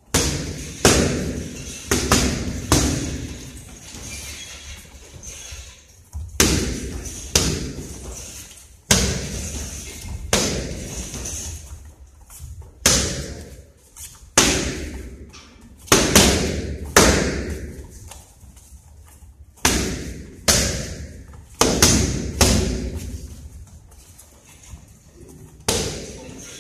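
Boxing gloves smacking into focus mitts in quick irregular combinations, often two or three hits in a row, each hit echoing in a large hall.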